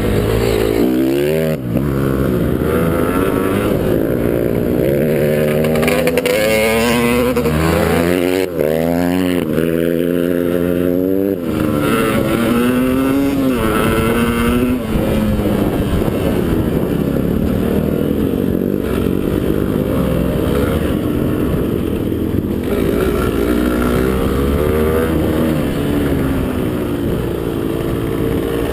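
Motocross motorcycle engine revving up and down repeatedly under throttle, its pitch rising and falling in quick sweeps, over a steady rumble.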